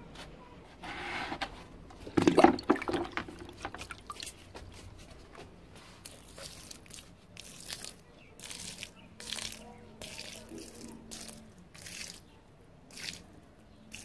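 Water poured by hand from a plastic bucket onto the soil of terrace planter boxes, a louder burst about two seconds in, then short splashes about once a second as the soil soaks.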